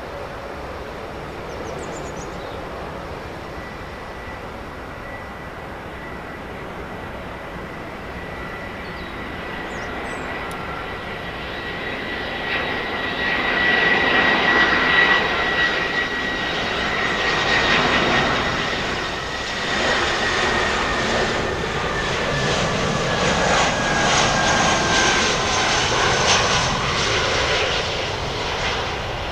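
Airbus A319-112 airliner on final approach, the whine of its CFM56-5B turbofans at approach power swelling as it draws near, about halfway through. The whine stays loud as the jet goes past, dropping slightly in pitch, and eases off near the end.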